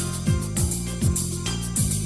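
Background music with a steady beat: a deep drum stroke about every half second over sustained low chords, with high cymbal hits.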